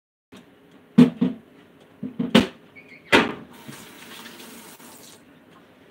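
A handful of sharp knocks and clatters, as of kitchenware being set down, then a kitchen tap running for about two seconds and shut off.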